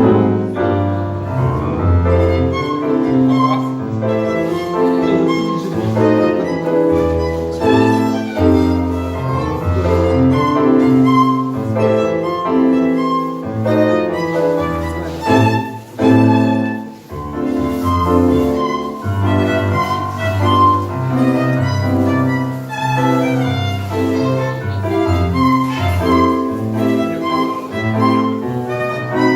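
Live tango music from a small band, starting abruptly with a loud note and carrying on with a melody over a pulsing low bass line.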